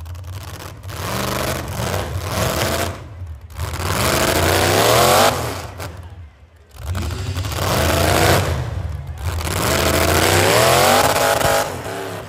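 Demolition derby cars' V8 engines revving hard in repeated surges, the pitch climbing in each before dropping away, with the two longest revs about four and ten seconds in.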